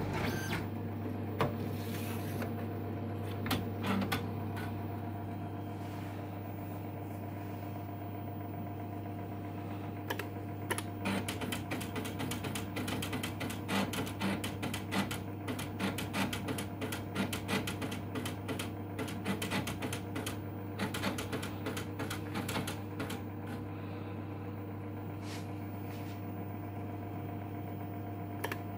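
IBM Displaywriter word-processing system running with a steady hum. From about ten seconds in until past the twenty-second mark, a long stretch of rapid mechanical clicking rises over the hum as a task loads.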